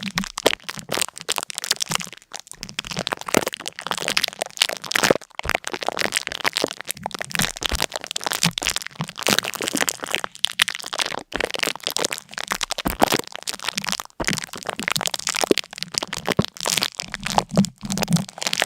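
Dense, continuous crackling and crunching: many sharp little cracks a second, without a break.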